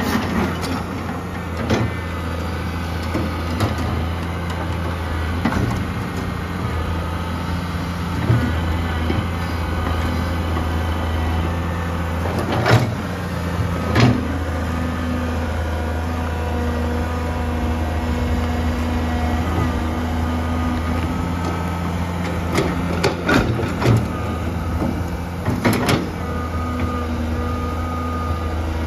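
Komatsu PC200-3 excavator's diesel engine running steadily under working load while the boom and bucket dig, with a hydraulic whine that comes and goes. A few sharp knocks stand out: two in the middle and a cluster near the end.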